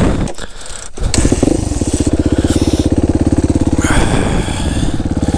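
Suzuki RMX450 dirt bike's single-cylinder four-stroke engine starting up, catching about a second in, then idling with a steady even pulse.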